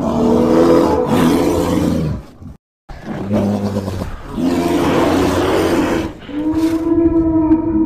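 A string of loud monster roars voicing a kaiju, broken by a brief silence about two and a half seconds in; the last roar, from about six seconds in, is steadier and more tonal and carries on past the end.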